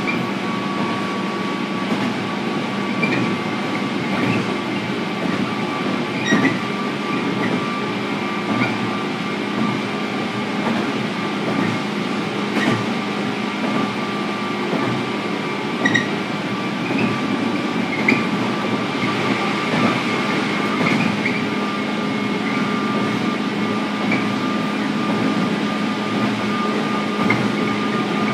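Onboard running sound of a JR 103 series (1500 subseries) electric train, motor car KuMoHa 103-1514, at a steady speed. A continuous rolling roar carries a steady hum and whine, with scattered sharp clicks from the wheels.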